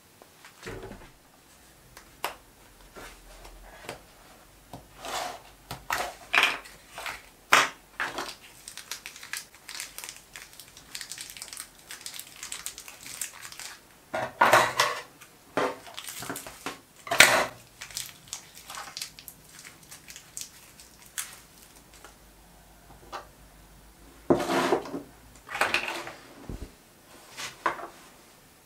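Irregular clicks, knocks and rattles of small steel ER11 collets and their plastic cases being picked up, opened and set down on a bench. The sounds come in clusters, with the loudest knocks around the middle.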